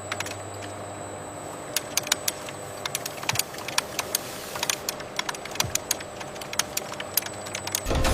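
Many sharp, irregular clicks and ticks, like rapid tapping or rattling, over a steady mechanical hum with a thin high whine.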